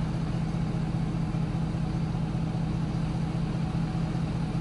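Steady, unchanging low hum with a light hiss above it, the kind of sound an idling engine or running machine makes.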